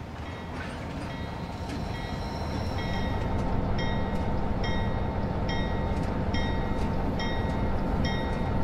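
A train rumbling along, growing louder over the first few seconds, while a bell rings over and over at about one and a half strokes a second.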